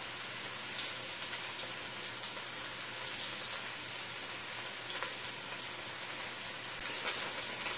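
Chopped onion, scallion, chili pepper and garlic sizzling steadily in hot olive oil, with a few faint crackles.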